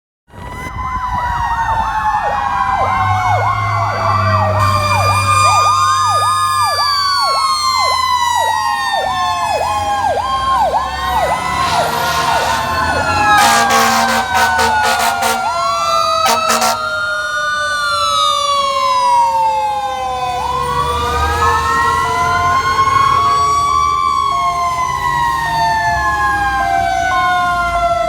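Several fire trucks and an ambulance responding with their sirens going. Fast yelping and slow rising-and-falling wails overlap, one siren tone falls steadily the whole time, and a two-tone hi-lo sounds near the end. Short loud blasts come about halfway through, over the rumble of the truck engines.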